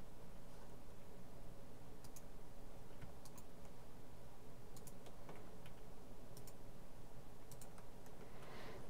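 Computer mouse buttons and keyboard keys clicking, short sharp clicks often in close pairs every second or so, over a steady low hum.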